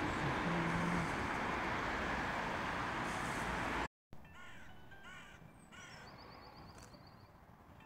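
A steady rushing outdoor noise for about the first four seconds. Then, after a brief break, crows cawing several times in short bursts, with a small bird's quick high trill between the caws.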